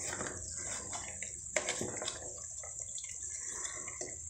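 Meat simmering and bubbling in its juices and fat in a metal pot while a wooden spoon stirs it, with a sharp click about a second and a half in.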